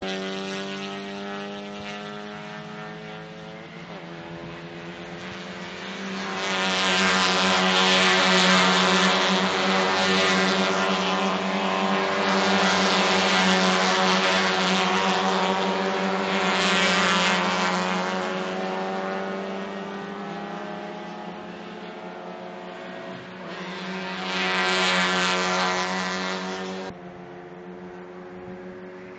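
Engines of 1.5-litre race cars running on a circuit, a steady multi-engine drone that swells loud about six seconds in as cars pass close, eases off, and swells again a little before the end, then drops away suddenly.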